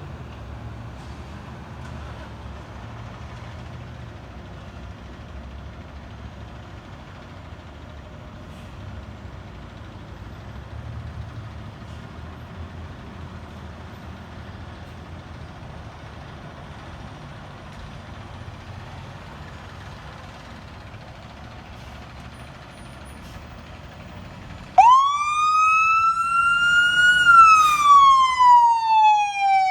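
A steady low rumble, then about 25 s in a fire engine's siren starts up, climbing quickly in pitch and then more slowly to a peak before gliding back down near the end. The siren is by far the loudest sound.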